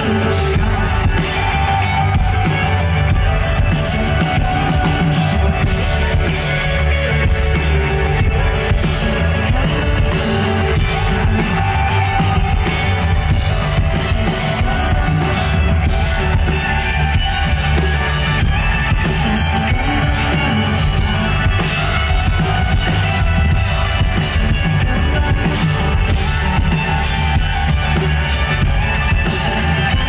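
Loud live band music, rock-leaning, with a singer's voice sung into a microphone over amplified instruments and drums.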